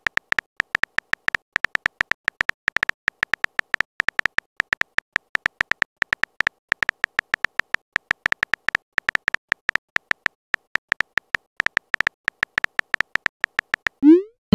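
Typing sounds of a texting-story app: a fast, irregular run of short, clicky beeps near one pitch as a message is typed out letter by letter. Near the end comes a short rising swoop as the message is sent.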